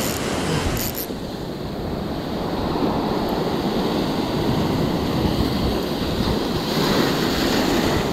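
Sea surf surging and breaking over rocks, with wind buffeting the microphone; the surf swells louder near the end.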